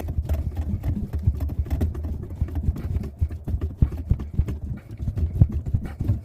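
Rotary pipe cutter being turned clockwise around a 15 mm copper pipe, its cutting wheel scoring the metal with a run of quick, irregular clicks and scrapes as it works through the pipe.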